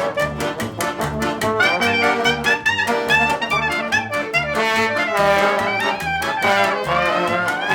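Instrumental music led by brass horns such as trumpet, over a steady jazzy beat.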